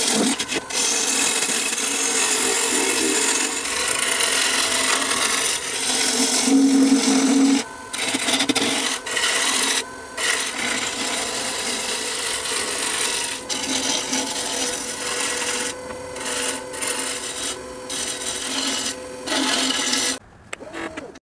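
Turning gouge cutting a spinning black walnut bowl on a wood lathe: a continuous rasping shear of wood shavings, broken by several short gaps in the second half.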